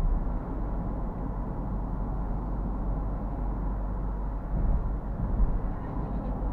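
Steady low road and engine rumble inside the cabin of a Ford Everest SUV driving on the highway, with a few louder bumps about five seconds in.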